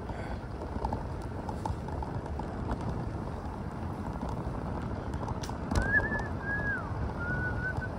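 Riding noise on a fixed-gear bicycle: steady wind and road rumble with scattered light ticks. Just before six seconds in there is a knock, then a thin, wavering whistle-like tone comes in for about two seconds.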